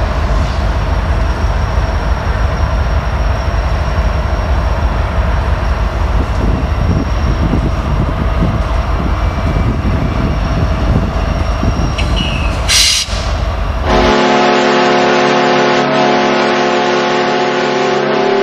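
Freight train's diesel locomotives running with a heavy, steady low rumble as the train rolls past, with a short sharp hiss about three-quarters through. Then the sound cuts to music with sustained tones.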